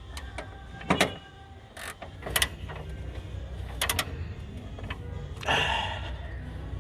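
Sharp clicks and knocks of hand tools on the engine mount's bolts and bracket as the replacement mount is fitted, in ones and twos about a second apart. A brief rasp comes near the end.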